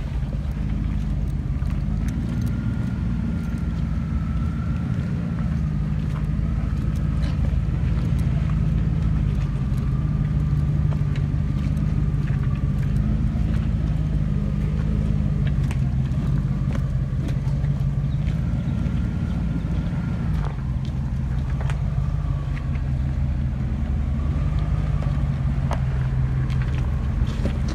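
Lifted Jeep Grand Cherokee engine running at low revs as the 4x4 crawls over a muddy, rocky forest track, the pitch rising and falling a little with the throttle. A faint high whine sits over the engine through most of it, with scattered clicks and snaps from the tyres on stones and twigs.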